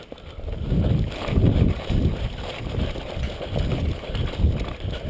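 Repeated low thumps, roughly two a second, with rustling, from the body-worn camera being jostled as its wearer moves on foot.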